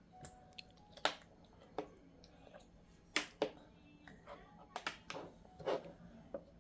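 A young child eating soup: a scattering of sharp clicks and taps from the spoon and bowl, with mouth noises of eating in between.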